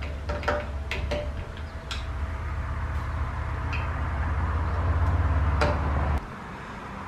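Scattered sharp clicks and light ticks of screws and hand tools as ceiling fan blades are fastened on, over a steady low hum that cuts off suddenly about six seconds in.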